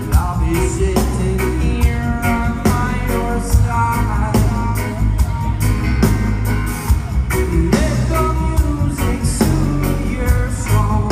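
Reggae band playing live with a singer: heavy bass and a steady drum beat under the vocal melody.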